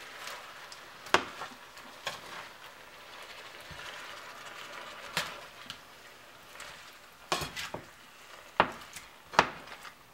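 Shrimp sizzling in butter in a frying pan as a spoon stirs them, with several sharp knocks of the spoon against the pan, the loudest near the end.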